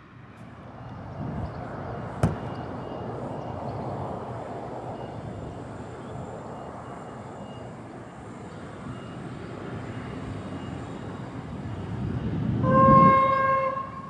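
A NSWGR 620/720 class diesel railcar running as it approaches, with a sharp click about two seconds in. Near the end its horn sounds one steady note for about a second, the loudest thing heard.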